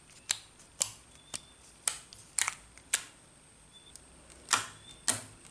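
A series of sharp clicks, roughly two a second, with a pause of about a second and a half midway, over a faint high-pitched whine.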